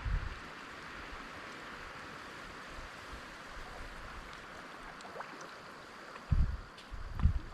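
Steady wash of wind and lapping water, with low rumbling buffets of wind on the microphone at the very start and twice in the last second and a half.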